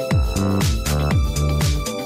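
Electronic dance background music: a steady kick-drum beat about twice a second under sustained synth chords.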